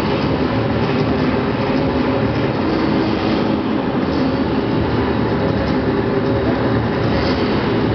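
Steady, loud din of a crowded indoor sports arena, one continuous wash of sound in a large echoing hall with no single event standing out.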